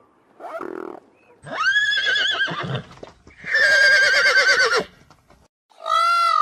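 A horse whinnying twice, each call about a second and a half long with a fast quaver in its pitch. Near the end a different animal's call begins, arching up and down in pitch.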